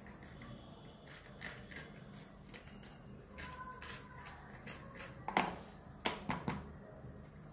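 A small knife scraping seeds out of slit green chillies on a plastic cutting board: soft scrapes and light clicks, with a few louder knocks on the board about five to six and a half seconds in.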